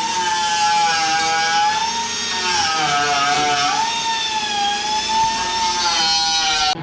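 Power tool motor running with a steady whine whose pitch dips and rises as it is loaded, cut off abruptly near the end.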